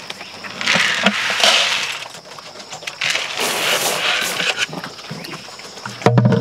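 Two scoops of pig feed poured into a wooden trough, each a brief rattling pour with scattered clicks. A short low grunt-like sound comes near the end.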